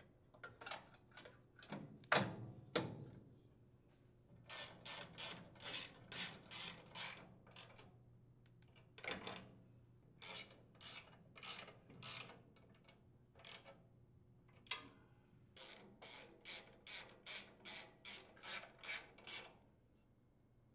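Blower housing screws on a Briggs & Stratton small engine being driven in by hand with a nut driver: quiet runs of short strokes, about two a second, one for each twist of the driver. A few knocks in the first seconds as the housing is set in place.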